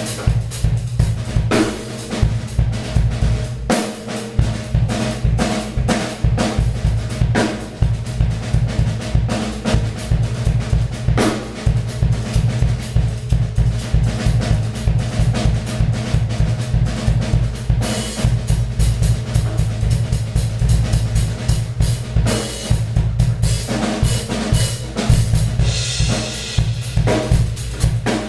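Acoustic drum kit played in a fast improvised solo: rapid bass-drum strokes under snare fills, rolls and rimshots, with cymbals ringing over them.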